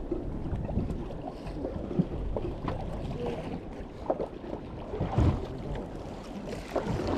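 Steady low noise of a fishing boat at sea, with wind and water against the hull and a few short knocks on deck.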